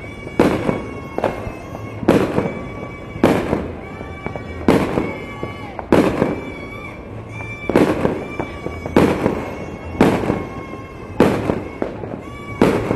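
Fireworks going off in a steady string of sharp bangs, about one a second, each trailing off in an echo, with a faint steady high tone underneath.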